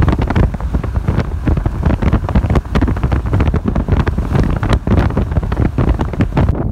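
Strong gusty wind buffeting the microphone: a heavy low rumble broken by frequent sharp gust hits.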